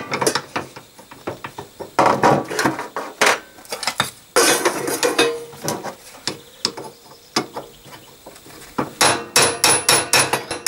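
Hammer blows, metal on metal, driving a tight-fitting needle roller bearing into a Panhard Dyna Junior rear suspension arm clamped in a vise. The bearing needs hard hitting to go in. The strikes come irregularly at first, then as a quick run of about five a second near the end.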